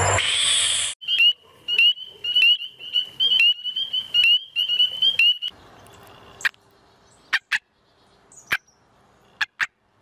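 A frog's loud open-mouthed scream cuts off about a second in. It is followed by a run of sharp, high chirping frog calls, about two a second, which stops about halfway through, and then a few scattered clicks.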